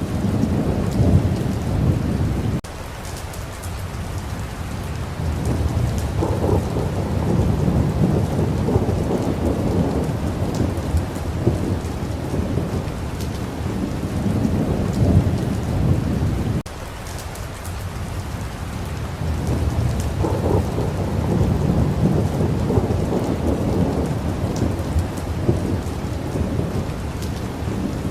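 Steady rain falling, with deep rolling thunder that swells and fades several times; the rumble cuts off abruptly twice, leaving the rain alone for a few seconds before the thunder builds again.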